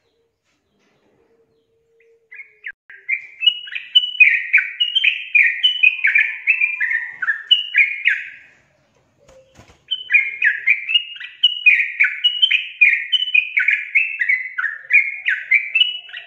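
Yellow-vented bulbul (trucukan) singing: two long bouts of rapid, bubbly chattering phrases, each of many short stepped notes, starting about two seconds in, with a short pause in the middle.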